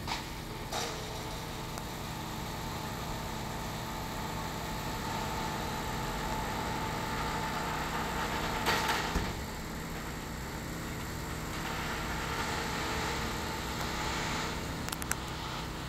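Steady engine-like hum on a roofing job site, with a sharp knock about a second in, a short cluster of knocks around nine seconds in, and a couple of clicks near the end.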